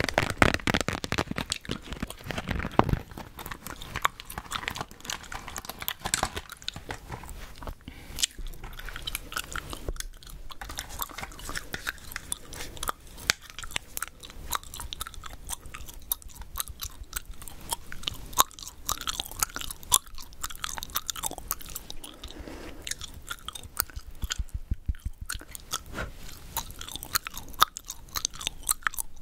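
Gum chewed right at the microphone: a steady run of quick, irregular mouth clicks and smacks. Makeup tools, a brush and a powder compact, are handled close by.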